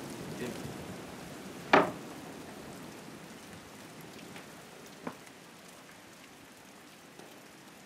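Steady hiss of rain falling on the old wooden barn, with one short, loud vocal sound about two seconds in and a faint click around five seconds.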